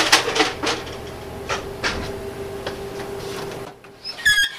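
Plastic clicks and knocks as the paper tray is pulled from a Dell 2335DN laser printer and the printer is handled, over a steady hum that stops near the end. A brief high squeak follows just before the end.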